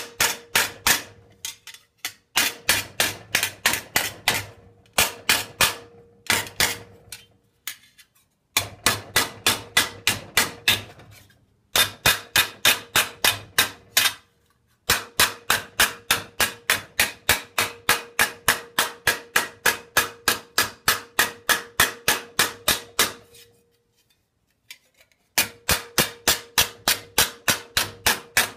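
Mallet blows on thin annealed stainless steel sheet held over a steel stake, about three to four strikes a second in several runs with short pauses, each run carrying a steady ringing note. The sheet is being bent over the stake's soft radius to form a second curve.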